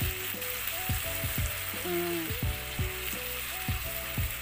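Strips of squash, carrot and string beans sizzling in a hot oiled pan with a little water just added. The steady hiss of the frying runs under the stirring.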